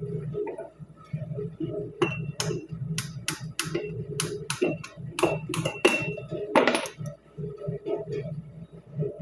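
Hammer tapping a bent steel hole-finder pick to drive the cotter pin out of the front axle nut on a 2008 Ram 2500: about ten sharp metal strikes, some with a brief ring, spaced unevenly over a few seconds. They end with one longer, rougher hit. A low steady hum sits underneath.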